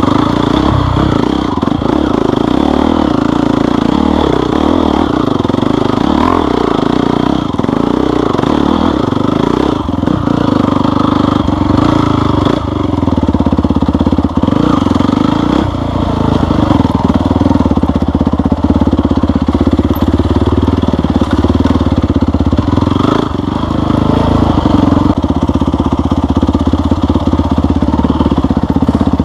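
Off-road vehicle engine running through the whole stretch, its pitch rising and falling as the throttle changes.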